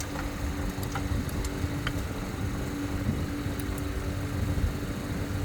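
A motor running steadily with a low hum and a held tone, with a few faint clicks.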